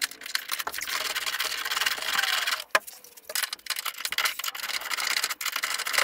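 Continuous rasping, scraping noise of hands and a wrench working metal parts under a car, with a short break about halfway through.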